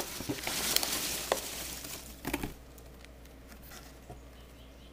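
Foam packing peanuts and cardboard rustling, with scattered light clicks, as a shrink-wrapped box is lifted out of a packed shipping carton. The rustling dies down after about two and a half seconds, leaving only a few faint clicks.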